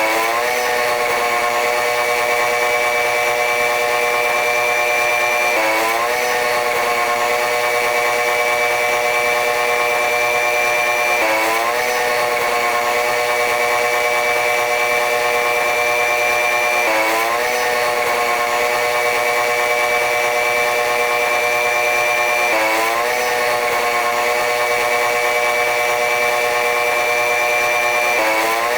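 Running noise of a diesel-electric locomotive train, sped up into a high, steady whine of stacked tones. The tones drop sharply in pitch and then climb slowly back, repeating about every five and a half seconds.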